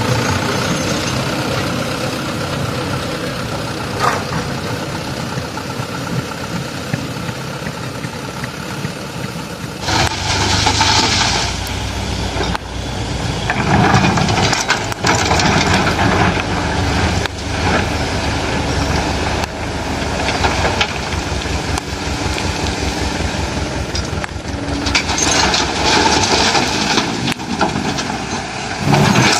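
Diesel engines of heavy earthmoving machinery (excavator and dump truck) running steadily, growing louder from about ten seconds in, with two stretches of loud hissing noise.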